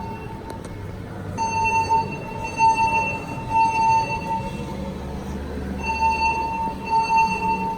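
Building fire alarm horns sounding a steady buzzing tone in repeated blasts, broken by pauses of over a second, about a second and a half in and again near the middle. The alarm was tripped by a burst sprinkler pipe.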